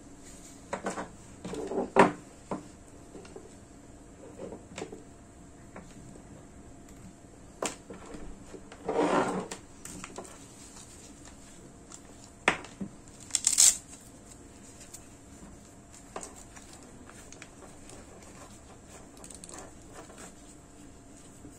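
Handling noise from a bicycle light kit's plastic rear light, mounts and battery pack being picked up, turned over and set down on a wooden table: scattered clicks, taps and rustles, the loudest knock about two seconds in and a longer rustle around nine seconds, over a faint steady high hiss.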